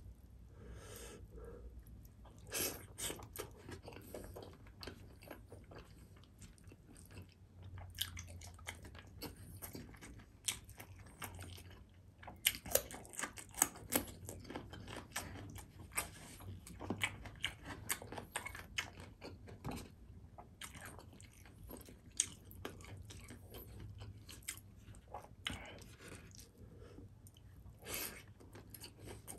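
Close-miked chewing and mouth sounds of someone eating rice and beef rendang by hand, with a cluster of louder, sharp crunching bites about halfway through as a raw cucumber stick is bitten.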